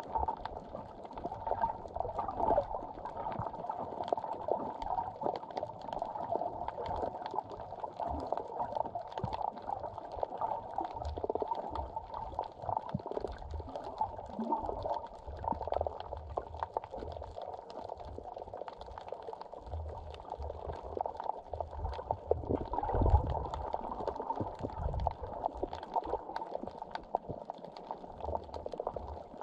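Muffled underwater water noise picked up by a camera during snorkeling: a continuous crackly bubbling and sloshing with dull low thumps.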